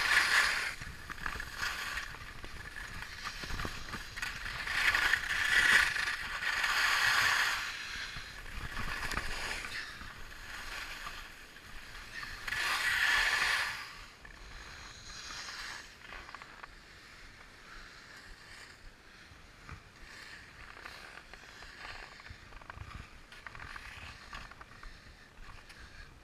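Skis hissing and scraping over packed, chopped-up piste snow through a series of turns, in swells of a few seconds each, the loudest about midway; after that a quieter, steady glide.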